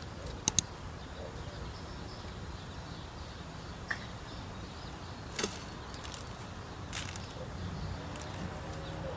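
Outdoor backyard ambience: a steady low rumble with a few sharp clicks and taps. Two loud ones come close together about half a second in, and fainter ones follow later.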